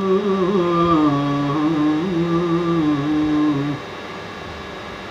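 A man's unaccompanied voice chanting a naat, holding a long sung note that wavers and steps down in pitch, then stopping about three and a half seconds in, leaving a faint steady room hum.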